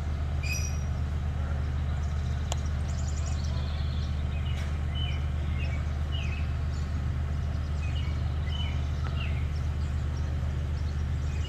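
Short, scattered bird chirps over a steady low hum, which is the loudest sound throughout.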